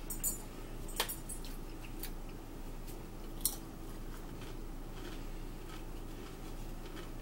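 A few short, sharp clicks and taps of tortilla chips and a plate being handled, the last one the loudest, over a steady low hum.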